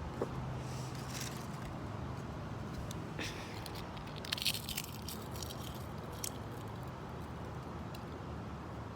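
Crisp material being crushed, giving a few short bursts of crunchy crackling, the loudest about halfway through, over a steady low hum.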